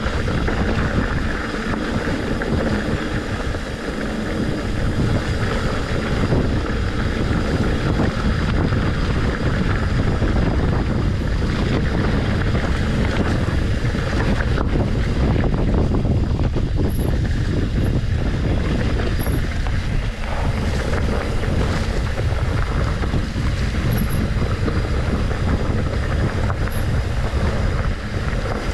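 Wind rushing over the microphone of a camera on a moving mountain bike, with the bike's tyres rumbling and its frame rattling over a dirt single-track trail, steady throughout.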